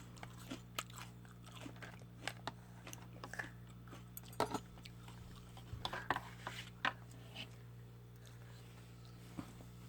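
Toddler chewing food: soft, scattered mouth clicks, smacks and crunches, a few louder ones about four and a half, six and seven seconds in, over a low steady hum.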